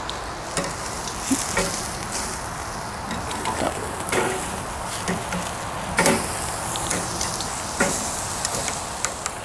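Lamb shoulder chops sizzling steadily on a wire grill grate over coals. About eight sharp clicks of metal tongs knocking on the grate are scattered through it as the chops are turned.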